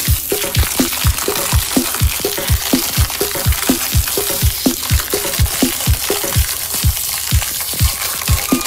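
Foil wrapper crinkling as it is torn off a jumbo chocolate surprise egg, over background music with a steady beat of about two strokes a second.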